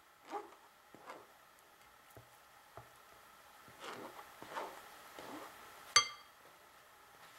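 Faint scraping of a spatula working thick chile sauce through a wire-mesh strainer over a glass bowl. About six seconds in comes one sharp, ringing clink of the strainer against the bowl.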